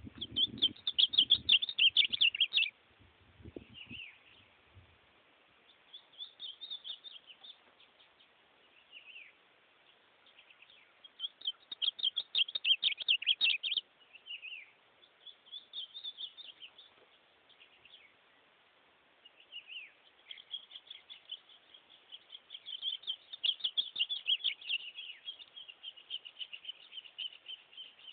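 A caged ultramarine grosbeak (azulão) singing warbled phrases, each a second or two long, with pauses of a few seconds between them, then a longer run of song near the end. A few low thumps come in the first few seconds.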